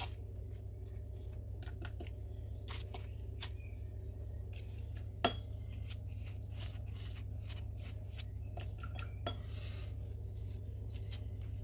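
Light scattered clicks and taps from a silicone pastry brush glazing dough in metal baking rings, one sharper tap about five seconds in, over a steady low hum.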